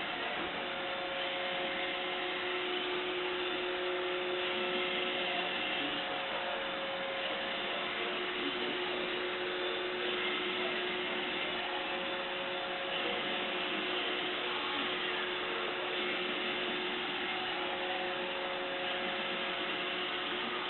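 Roomba robot vacuum running, its suction motor and brushes making a steady whirring noise with a few whining tones that fade in and out. The robot is spinning in small circles instead of cleaning in its normal pattern, which the owner takes for a fault in the new unit.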